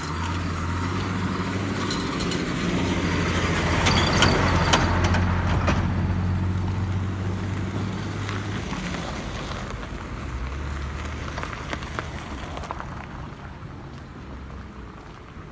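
A motor vehicle's engine passing close by on the road, its low hum and road noise growing louder to a peak about four seconds in, then fading away.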